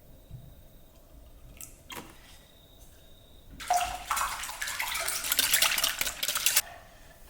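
Water running from a tap for about three seconds, starting about three and a half seconds in and stopping abruptly, with a few light clicks before it.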